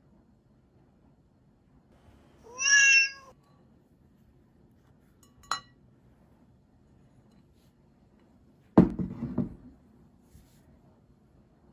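A single cat meow, rising and then holding its pitch, about two and a half seconds in. A short click follows a few seconds later, then a louder dull thump near the end.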